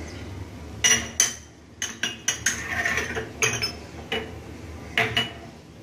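Kitchen utensils and dishes clinking and knocking as they are handled: a series of separate, irregularly spaced sharp clinks, each with a brief high ring.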